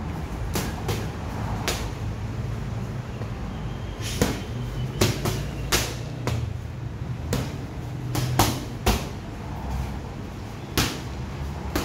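Boxing gloves striking focus mitts: sharp slaps, singly and in quick combinations of two or three, with short pauses between, over a steady low hum.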